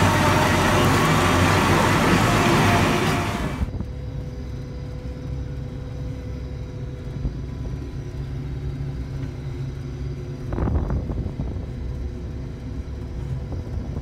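Tractor pulling a reversible plough through soil: a loud rushing machine noise that cuts off sharply a few seconds in. It is replaced by the steadier, quieter drone of a combine harvester at work with its header cutting standing crop, with a brief louder swell about ten seconds in.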